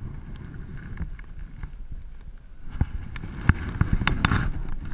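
Low rumble of wind on the microphone, with a run of clicks and knocks that grows denser and louder in the second half. These are handling knocks on a plastic fishing kayak while a small hammerhead shark is held aboard.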